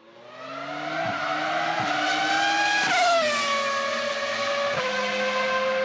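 Racing car engine at high revs, fading in, its note climbing and then dropping sharply several times before settling on a steady high note.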